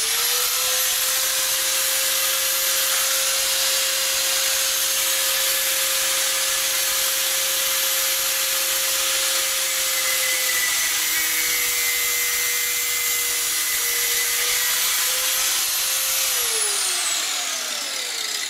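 Electric angle grinder with a cutoff wheel cutting a metal fuel pickup tube. Its whine rises as it spins up and then runs steady, sagging slightly in pitch a couple of times in the middle as the wheel bites into the cut. Near the end it winds down with a falling whine.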